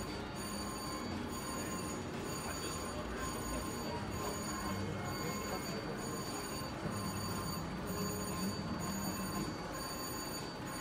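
Casino floor ambience: slot machines give off steady electronic ringing and chiming tones, with a steady background hum.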